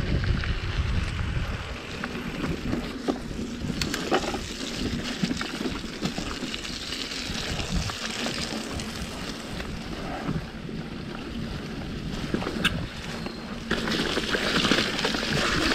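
Mountain bike riding a trail: wind buffeting the microphone, steady tyre hiss and a few sharp knocks from the bike, with the hiss growing louder near the end.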